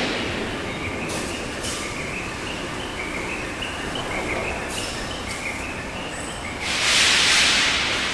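Steel fabrication shop-floor noise: a steady machinery din with a row of short, repeated high chirps, then a loud hissing blast about seven seconds in that lasts about a second.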